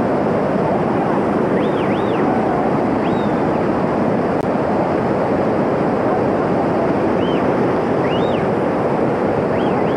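Mountain stream cascading over boulders: a loud, steady rush of white water. A few short, high chirps sound over it now and then.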